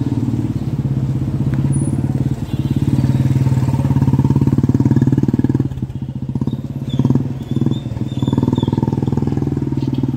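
Motorcycle engine running steadily close by, a low, even engine note with rapid pulsing. It dips briefly in loudness about six to seven seconds in.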